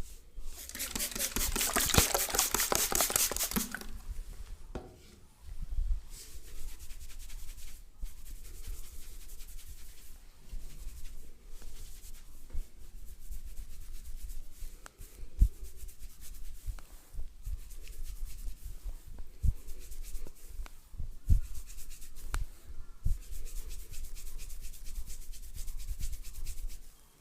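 Close, fast rubbing and scratching against hair and skin, loud for the first few seconds, then softer and steady, with a few soft thumps scattered through it.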